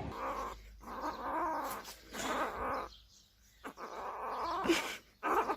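A cat yowling in a series of drawn-out, wavering calls, with a short pause about three seconds in.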